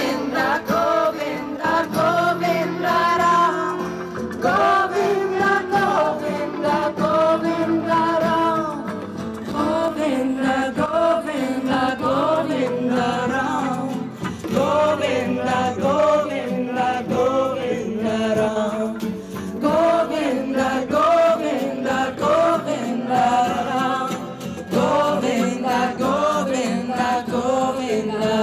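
Live acoustic band music: several voices singing together over strummed acoustic guitars and hand drums.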